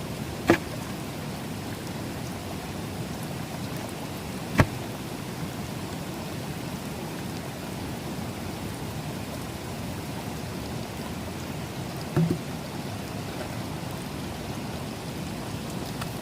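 Steady rain falling, with a few short sharp knocks: one about half a second in, another about four seconds later, and a quick double knock near the twelve-second mark.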